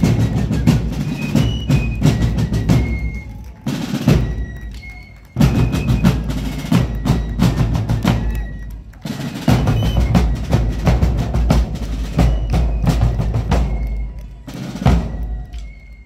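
Fife and drum corps playing a march: shrill fifes over rope-tensioned snare and bass drums. The music breaks off and starts again abruptly a few times.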